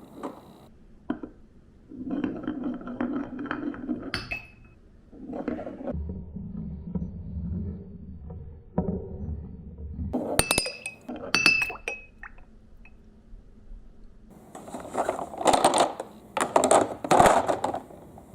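Marbles rolling down a marble run track: a rolling rumble broken by sharp clinks, with a burst of loud clattering near the end.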